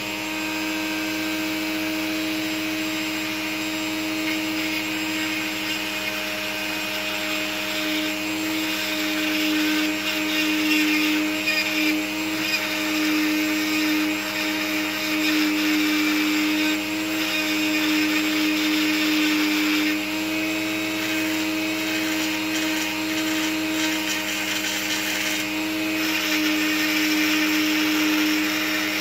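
Dremel rotary tool running at a steady speed, a constant motor whine, while a needle file is held against the pin spinning in its chuck, rasping the pin's rounded nail head flat.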